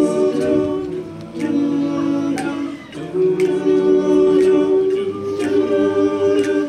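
Male a cappella group singing sustained backing chords, moving to a new chord twice, with short sharp ticks keeping a light beat.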